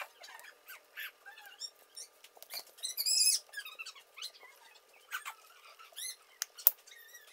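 Rapid high-pitched animal chirps and squeaks, bird-like, repeating throughout, with a few sharp clicks. The loudest run of calls comes about three seconds in.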